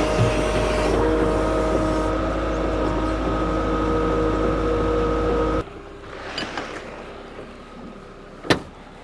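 Kato compact track loader's engine running at working revs with a steady whine over it, cutting off suddenly about five and a half seconds in. Near the end comes one sharp metallic clack from the latch of the aluminium kiln door being worked.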